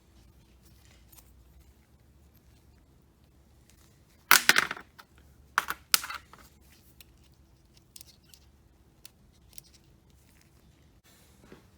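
Small metal swivel parts handled on a workbench: a short clatter about four seconds in, then two sharp clinks, with faint handling ticks between.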